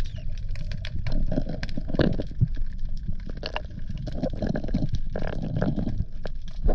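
Underwater sound picked up by an action camera below the surface: a muffled rumble of water movement with a constant crackle of small clicks, and gurgling bubbles swelling about two seconds in and again around five to six seconds in.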